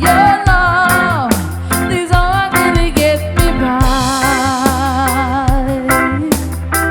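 Reggae band music: a lead line of long held notes with vibrato, one bending down about a second in, over a deep bass and regular drum hits.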